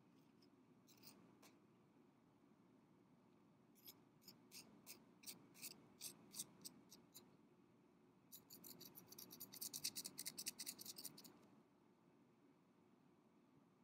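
Light taps of a thin rod against a glass candle jar: two single taps, then an even run of about three taps a second, then a fast flurry of ticking that stops abruptly.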